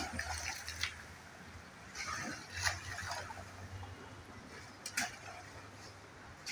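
Asian elephant splashing and scuffing in shallow muddy river water at the bank: short splashes near the start, around two and a half seconds in, and a sharper one about five seconds in.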